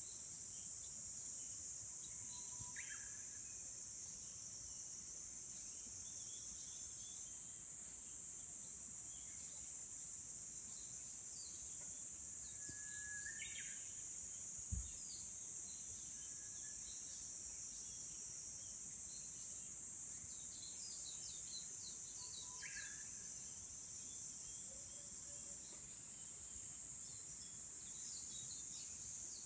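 Japanese bush warbler singing its 'hō-hokekyo' song three times, about ten seconds apart, each a held whistle followed by a quick flourish. A steady high insect drone runs underneath throughout, with faint chirps scattered through and a single low thump near the middle.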